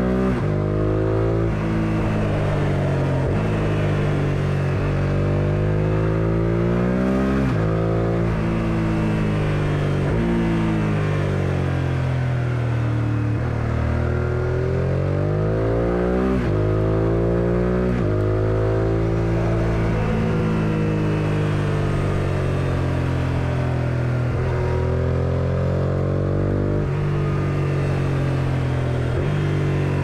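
Suzuki SV650S V-twin engine heard on the move, revs climbing and falling back several times as it accelerates, changes gear and eases off for bends, with wind rush.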